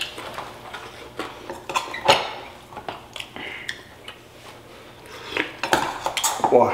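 Metal spoons clinking and scraping against ceramic plates and bowls and a stainless-steel bowl during a meal, a scatter of sharp clicks with a few brighter ringing clinks about two seconds in and again near the end.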